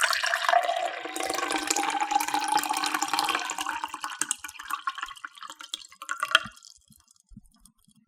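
Water poured into a cup in one steady stream, its pitch rising slightly as it fills, then thinning out and stopping with a last splash about six seconds in, followed by a few faint drips.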